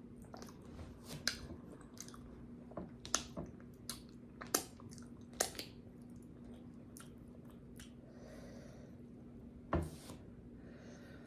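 Close-miked chewing and wet lip smacking of someone eating boiled potatoes and corn, with sharp smacks scattered irregularly, the loudest about ten seconds in. A steady low hum runs underneath.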